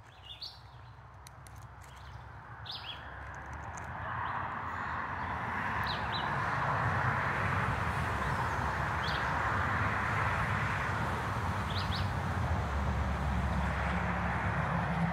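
Wild birds giving short, scattered chirps over a steady rushing noise that grows louder over the first few seconds and then holds.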